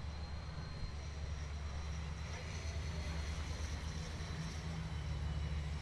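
Diesel engines of race semi trucks idling and creeping under caution, a steady low rumble.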